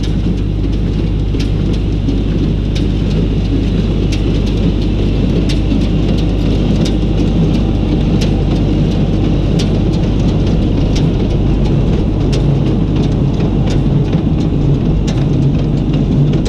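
Wind rumbling on the microphone over a tractor and hay baler running steadily at a distance, with sharp ticks at uneven gaps of under a second.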